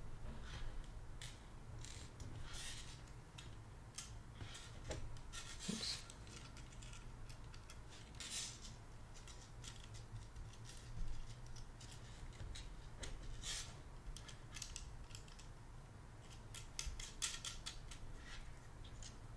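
Faint scattered clicks and scratchy rubbing of small parts handled by fingers: a brass retainer nut is picked up and threaded by hand onto the antenna connector on the case.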